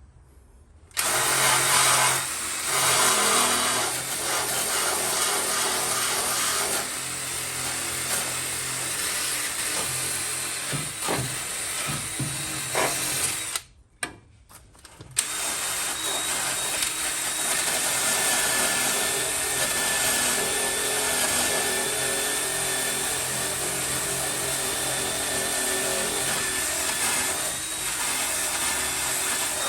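Power tool fitted with a wire brush, running and scouring surface rust off steel in the car's engine bay. It starts about a second in, stops briefly near the middle, then runs on steadily.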